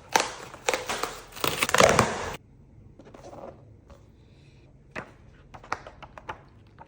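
Shipping package being torn open: about two and a half seconds of rough tearing and crinkling of the packaging, then quiet handling with a few light taps and clicks.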